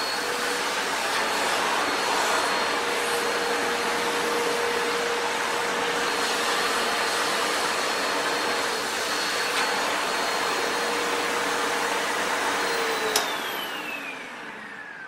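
Sebo Felix vacuum cleaner running steadily with a constant motor whine. About 13 seconds in it is switched off with a click, and the motor winds down in a falling whine.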